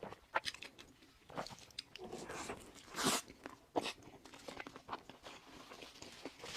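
Close-up sounds of a burger being bitten and chewed: moist crunching and smacking clicks, with a louder, longer crunch about three seconds in.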